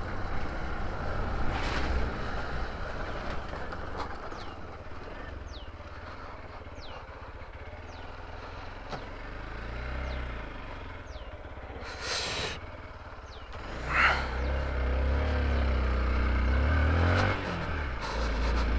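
Hero Xpulse motorcycle being ridden off-road: engine and wind rumble, easing off through the middle and building again over the last few seconds, with a couple of brief rattles along the way.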